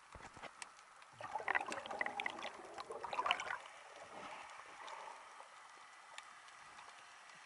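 Underwater water noise picked up by a submerged camera: a burst of gurgling and crackling from about one to three and a half seconds in, then a faint steady hiss.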